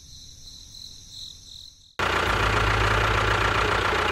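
Faint hiss with a steady high tone, then about halfway through a tractor engine sound starts abruptly and runs steadily: a loud, noisy rumble over a low hum.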